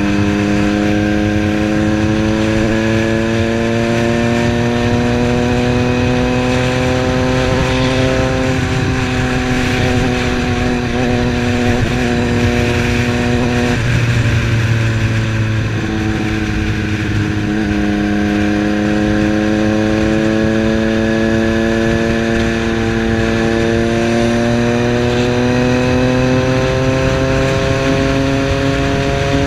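Triumph Street Triple's 675 cc three-cylinder engine running under way, its note climbing slowly as the bike gathers speed. About halfway through the note breaks and drops lower, then climbs steadily again, over a constant rush of wind and road noise.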